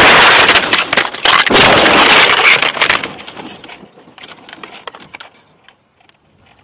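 A truck-and-car collision heard from inside the cab: a loud crash of crunching impacts and flying debris for about three seconds, then scattered clinks and rattles that die away.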